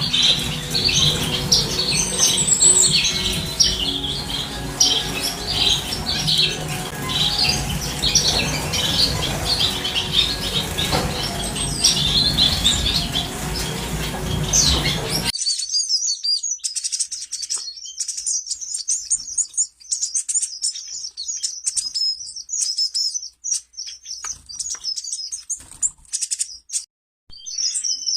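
A colony of small aviary birds (finches and canaries) chirping and twittering continuously, many calls overlapping, over a steady low hum. About halfway through the hum drops out abruptly and only higher, cleaner chirps remain.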